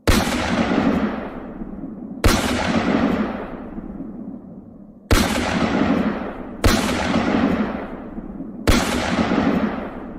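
Gunfire-type blast sound effects: five sharp shots at uneven intervals, each followed by a long fading rumble.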